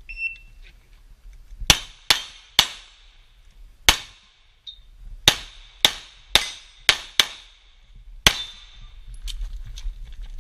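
A short electronic shot-timer beep, then about ten pistol shots fired in quick strings with pauses between: a practical-shooting stage being run from the start signal.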